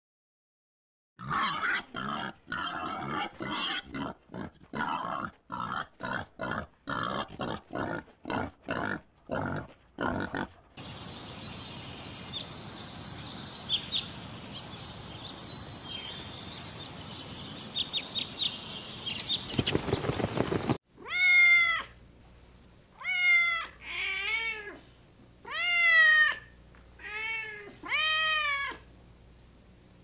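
Animal sounds edited together. It opens with a fast run of short, repeated calls, about two a second. A stretch of steady hiss with scattered clicks follows. In the last third a domestic cat meows about seven times, each meow rising and then falling in pitch; these are the loudest sounds.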